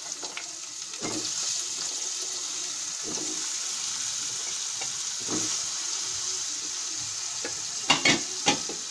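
Halved new potatoes frying in hot oil with onions in a pot: a steady sizzle, with a few short knocks, the loudest near the end.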